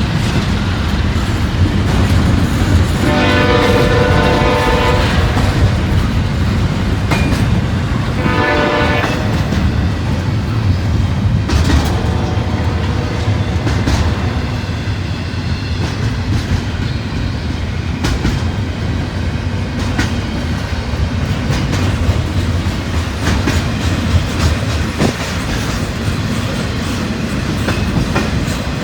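CSX intermodal freight train passing, its locomotive horn sounding a long blast about three seconds in and a shorter one around eight seconds, with a fainter blast a few seconds later. Throughout, the train rumbles by with rail-joint clatter from the wheels.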